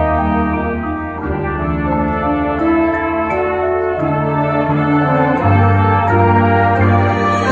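Marching band playing a slow passage of long held chords from clarinets and brass, with a trumpet prominent; the bass note changes every second or two.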